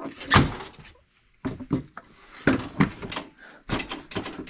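Caliber folding aluminium ramp with a plywood deck being unfolded and set down: clanks and thuds, one loud knock at the start, then a run of quick knocks and clatter after a short pause.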